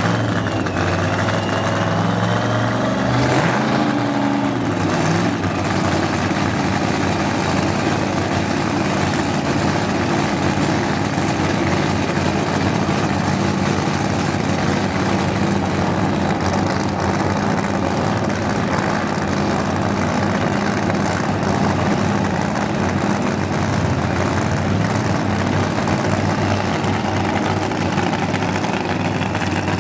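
Supercharged funny car engine idling loudly and steadily during a pit warm-up, its note rising and falling briefly about three seconds in.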